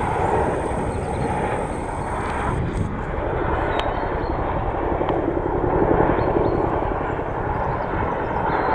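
Boeing CH-47 Chinook tandem-rotor helicopter flying low overhead, its twin rotors giving a loud, steady, fast blade chop.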